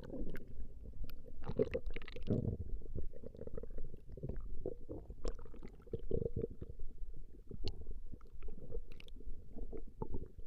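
A person's stomach growling and gurgling in a continuous run of short, irregular low rumbles, with a few brief higher squeaks.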